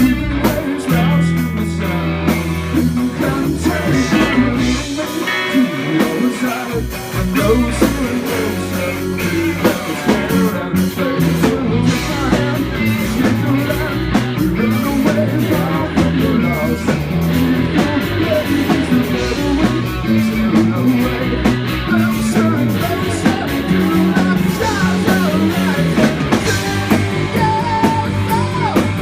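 A live rock band playing loud: electric guitar over bass and drums, with no words sung.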